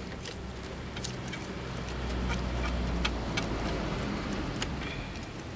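A low vehicle rumble swells and eases off about halfway through. Over it come scattered light clicks as a Phillips screwdriver works a screw in the plastic side cover of a Suzuki Address V100 scooter.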